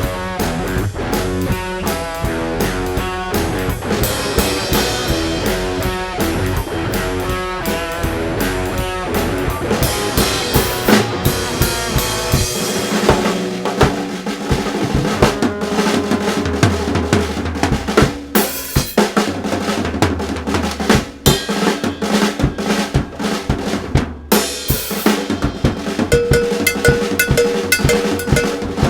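Music led by a drum kit, with kick drum, snare and rim hits over pitched instruments; the low bass drops away about halfway through while the drums carry on.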